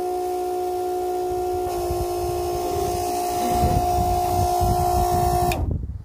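Small 12-volt water pump running with a steady whine, pushing water through the sink sprayer with a spraying hiss; a louder rumbling noise joins in over the last couple of seconds, and everything stops abruptly about half a second before the end.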